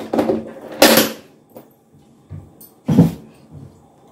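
Handling sounds as salt goes into a bowl of butter and a spoon is taken up: a sharp rustle-and-clatter about a second in, then a single duller knock about three seconds in.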